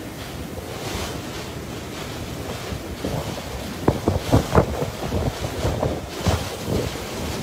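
Tropical cyclone winds blowing hard, with strong gusts buffeting the phone's microphone as repeated low thumps from about four seconds in.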